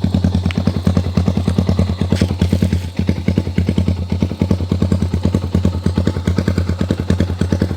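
Yamaha R15's single-cylinder engine running steadily through an aftermarket Akrapovic exhaust, an even, rapid pulsing beat.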